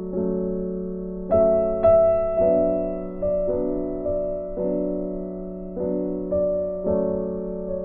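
Background piano music: sustained notes and chords struck every half second to a second or so, each fading away.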